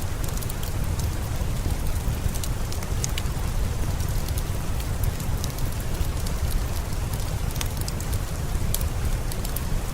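Steady rain with scattered sharp crackles and pops from a wood fire in a fireplace.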